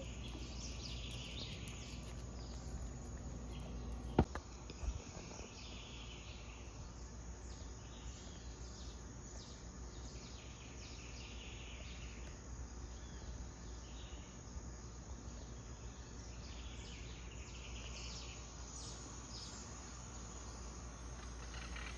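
Small birds chirping and twittering over a steady low background hum, with a sharp click about four seconds in and a smaller one just after.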